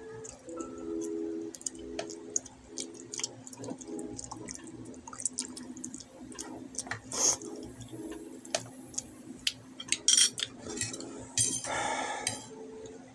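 Close-miked eating: wet mouth clicks and smacks while chewing, with occasional clinks of a fork on the dish and a brief rustling scrape near the end. Faint held tones run underneath.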